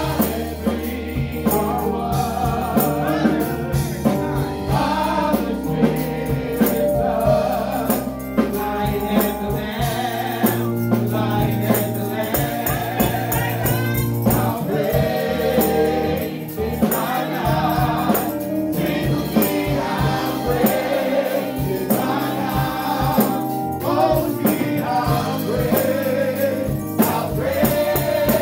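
Live gospel worship music: several voices singing together into microphones over band accompaniment, with low bass notes and frequent percussion strikes.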